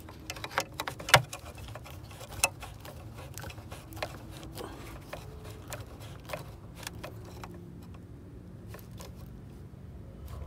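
Short sharp clicks and light taps of a star (Torx) screwdriver driving in the screws of a new mass airflow sensor. They come thick in the first few seconds, the loudest about a second in, then thin out.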